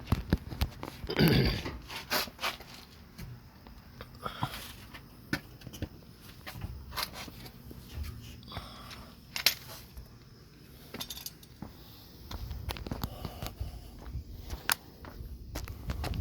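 Irregular handling noises: scattered clicks, knocks and a brief scrape as cables and mounting parts are worked by hand, with a low rumble in the last few seconds.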